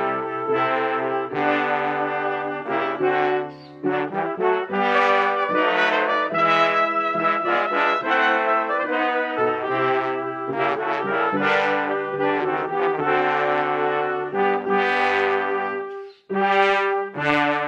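A brass ensemble of trumpets and trombones with piano plays sustained chords and melody, layered from separate recordings. There are short breaks between phrases about three and a half seconds in and again near the end.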